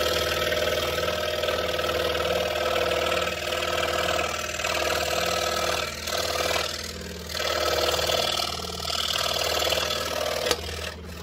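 Pegas scroll saw running, its No. 3 blade cutting through a taped stack of thin wood: a steady motor hum under the rasp of the cut, which grows softer and louder as the piece is turned. The sound dies away right at the end.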